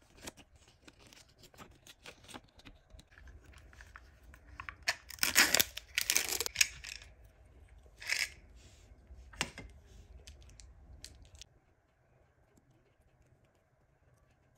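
Hands unwrapping a Zuru 5 Surprise Pet Rescue capsule toy close to the microphone: wrapping crinkled and torn, with small clicks of plastic parts. The loudest tearing comes in bursts about five to seven seconds in, with shorter ones near eight and nine and a half seconds; the last few seconds hold only faint handling.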